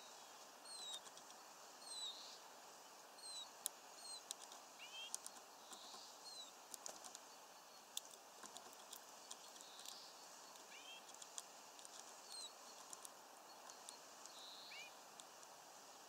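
Faint songbird calls: quick high chirps that drop in pitch, about one a second, with a short rising note every four to five seconds. Scattered light clicks and taps run underneath.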